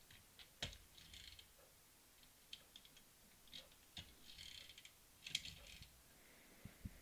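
Faint clicking and short gear whirrs from the pull-back spring motor of a Welly 1:36 Alfa Romeo GT diecast model car, as the car is wound back by hand and let go, with scattered light taps.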